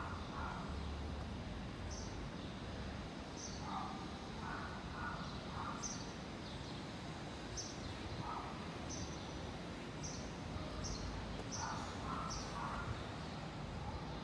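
Birds calling: short high chirps repeating every second or so, and now and then a harsher call given two or three times in a row, over a steady low background rumble.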